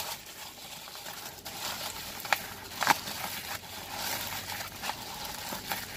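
Plastic bubble wrap being pulled off a bottle and crinkled by hand, a steady crackly rustle with a few sharper crackles, the loudest about two and three seconds in.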